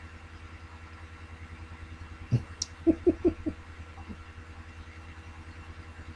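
Steady low hum, with a click a little over two seconds in followed by four or five short, soft, falling vocal sounds and one more about a second later.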